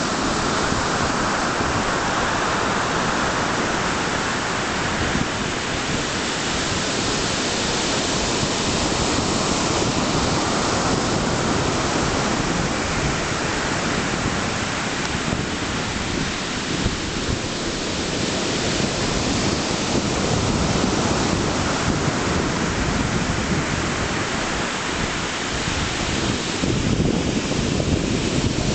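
Storm surf on the Black Sea: heavy waves breaking and washing up the beach in a continuous rush that swells and eases every few seconds, with wind buffeting the microphone.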